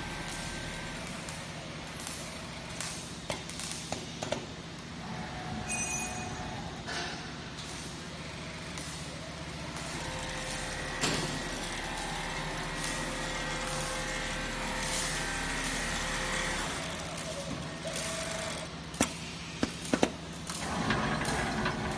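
High-speed servo-motor single-needle quilting machine running, its sewing head stitching through the quilt as it travels: a steady mechanical hum, with a few sharp clicks near the end.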